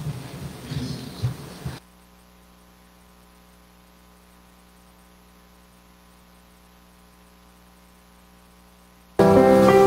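Steady electrical mains hum from the sound system, a faint drone of evenly spaced tones, after a second or two of faint rustling at the lectern microphone. Piano music comes in loudly near the end.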